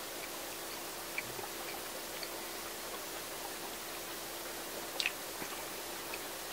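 Quiet, steady room hiss with a faint low hum, broken by a few small clicks; the sharpest is a quick double click about five seconds in.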